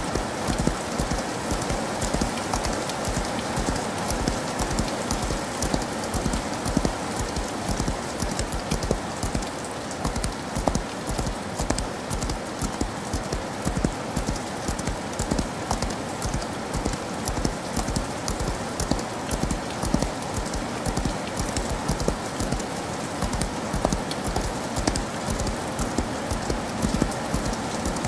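Hoofbeats of a galloping horse, a rapid, even rhythm of thuds, over the steady hiss of falling rain.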